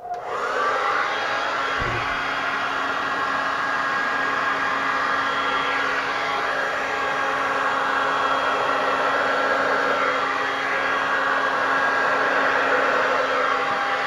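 Handheld hair dryer switched on and running steadily: a rush of air with a steady hum in it. There is a brief low bump about two seconds in.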